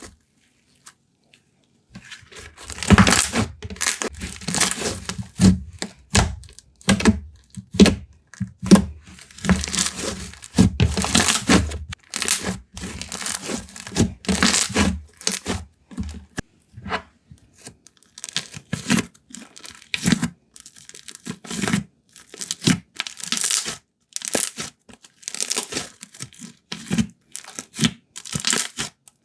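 Hands playing with slime: irregular clicks and pops as it is stretched, folded and pressed, starting about two seconds in.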